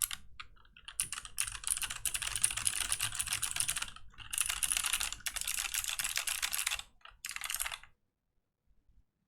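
Typing sound test on a Fox Orange 80 (Pizza80), an all-aluminium TKL mechanical keyboard fitted with unusual switches. A few single keystrokes are followed by three fast, continuous runs of typing, which stop about eight seconds in.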